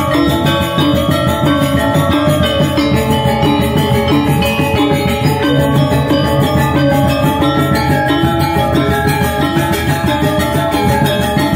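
Balinese gong gamelan ensemble playing a tabuh: bronze-keyed metallophones struck with wooden hammer mallets, many ringing pitches layered in dense, fast strokes at a steady level.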